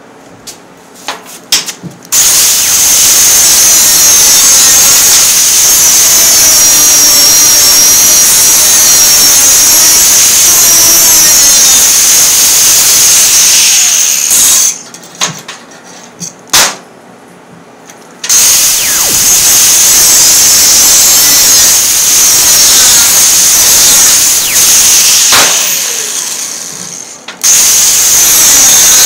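Angle grinder with an abrasive disc grinding a steel saw blade: loud grinding noise with a high steady whine. It runs in three long stretches, stopping about 14 seconds in and again about 25 seconds in, with a few clicks of handling in the pauses.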